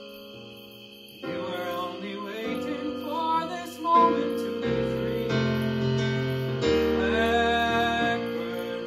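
Live keyboard music: held chords on a Nord Stage stage keyboard, changing every second or so, with a wordless vocal line over them. The chords come in about a second in and are loudest a little before the midpoint.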